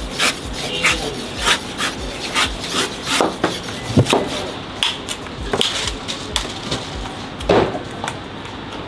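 Large kitchen knife chopping into a coconut's husk on a wooden chopping board: a run of irregular sharp chops, a few a second, the hardest about four seconds in and another near the end.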